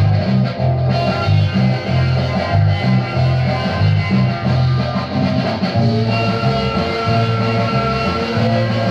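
A 1963 garage-rock single playing from a 7-inch vinyl record on a turntable: guitar over a repeating bass line, with a long held tone coming in about six seconds in.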